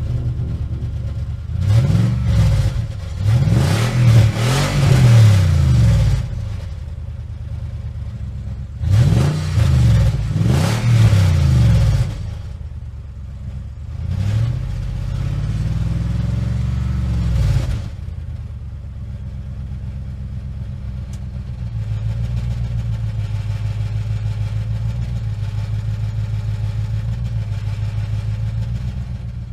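Heavy vehicle engine revving up and down repeatedly in quick runs, with a rattling noise over the revs, then settling to a steady idle for the last several seconds.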